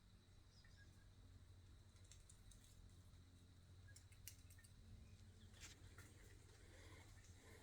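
Near silence: a faint low hum with a few soft, scattered clicks and ticks.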